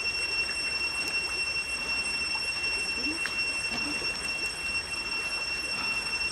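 A steady high-pitched drone with a fainter, higher tone above it, and a few faint short low calls about three to four seconds in.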